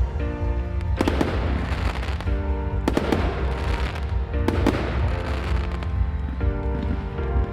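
Fireworks display: several sharp bangs of aerial shells bursting a second or two apart, some with a crackling tail, over music with held chords.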